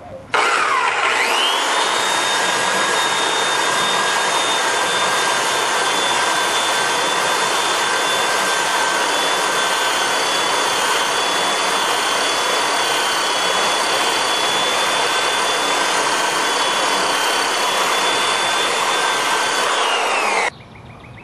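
Handheld electric sander starting with a rising whine, then running steadily as its abrasive sands the edge of quarter-inch mirror glass with a coarser grit than 120. It is switched off near the end, its whine falling as it winds down.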